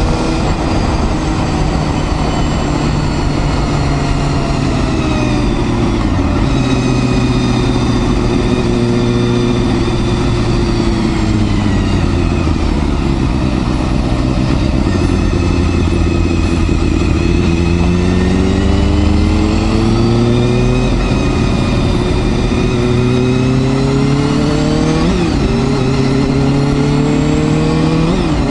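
Honda Hornet 250's inline-four engine under way. Its pitch falls gradually over the first half as the revs drop, then climbs steadily through the second half as it accelerates, breaking briefly twice near the end.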